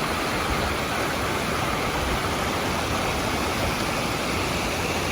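Steady rush of whitewater from the Ocoee River running high after water is released from the upstream dam.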